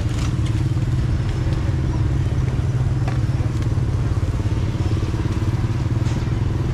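An engine running steadily with an even low rumble and a constant hum, with a few brief clicks and clatters over it.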